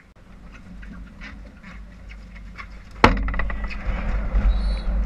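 A sharp knock about three seconds in, followed by loud low rumbling and rustling noise.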